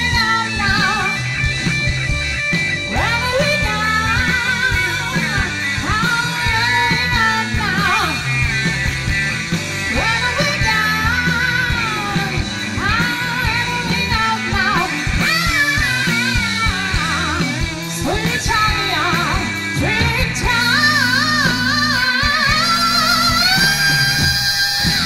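Live rock band playing: a woman sings lead over electric guitar and bass guitar.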